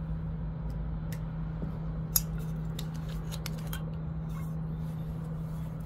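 A steady low hum with scattered sharp clicks over it, the loudest click a little after two seconds in.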